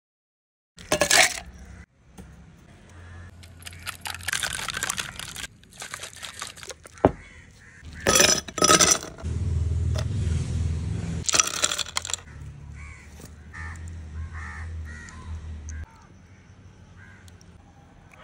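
Drink being assembled in a glass: ice cubes dropping in and clattering against the glass in several loud, sudden bursts through the first two-thirds, then softer sounds as liquid is poured over the ice.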